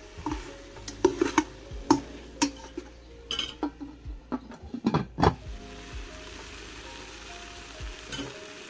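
A metal spoon clinking and scraping against the enamelled pot of an olla ferroviaria as the onion and pepper sofrito is stirred in sizzling oil, then the enamel lid knocked down onto the pot about five seconds in. Faint background music runs underneath.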